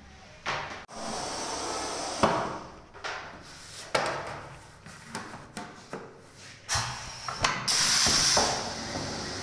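Pneumatic screen-printing machine working through a print cycle: sharp knocks and clunks as the screen frame, squeegee and board move, with bursts of air hiss, the longest and loudest about seven seconds in.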